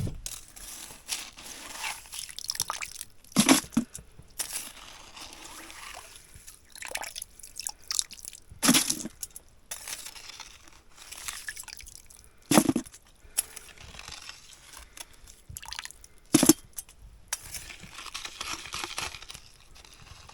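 Slushy ice and water being worked in an ice-fishing hole: wet crunching and dripping, with four sharp knocks spread through.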